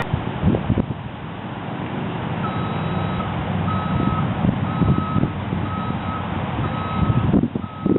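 Hi-rail truck's backup alarm beeping about once a second, starting a couple of seconds in, over the truck's running engine, with a few low clunks as it reverses to set its rail wheels onto the track.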